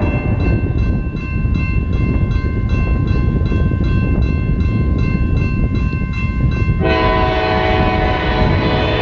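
Grade-crossing bell ringing at about three strikes a second over the low rumble of approaching CSX locomotives. About seven seconds in, the locomotive horn sounds a loud chord for the crossing.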